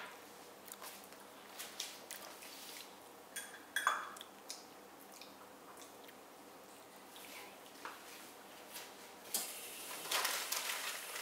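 Quiet handling sounds: a plastic spoon clicking and scraping against a small glass baby-food jar, with a brief rustle near the end.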